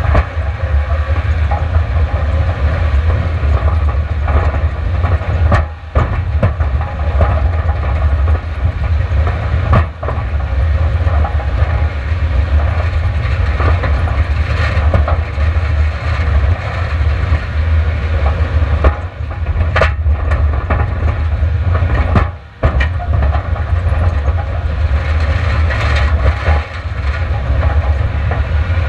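Continuous loud rumble of a Subaru Outback racing over gravel and dirt roads, heard from an onboard camera: engine and tyres on loose gravel over a heavy low rumble, with a few brief dips in level.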